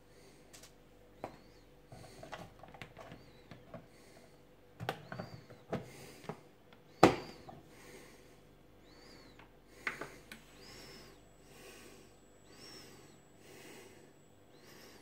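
Plastic clicks and taps from a drip coffee maker and a plastic coffee tub being handled, with one loud sharp click about 7 s in as the maker's hinged plastic lid snaps shut, and a few more clicks about 10 s in. After that a faint whistling hiss repeats about once a second.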